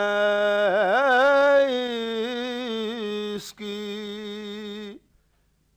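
A man singing an Urdu naat in a single solo voice, drawing out long held notes with a quick ornamented run about a second in. He breaks off about five seconds in.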